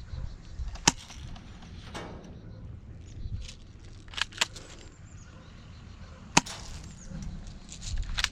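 Airsoft guns firing single shots: a few sharp cracks at irregular gaps, two of them in quick succession near the middle.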